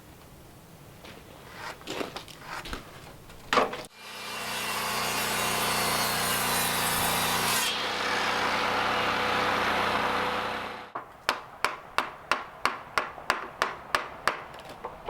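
Woodworking on timber: a few scattered knocks, then about seven seconds of loud, steady noise, then quick, even strokes of a hand saw cutting wood, about three a second.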